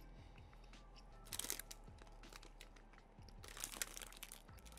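Crinkly plastic sweet bag being handled and worked open, crackling in two main bursts about a second and a half in and again near the end.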